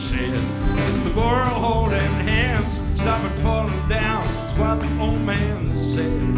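Live band playing a country-style song: strummed acoustic guitar, bass and drums, with a man and a woman singing.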